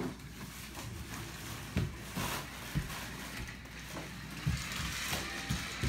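Plastic PAW Patrol toy vehicle being pushed across a hardwood floor, rolling with a few irregular knocks and thumps.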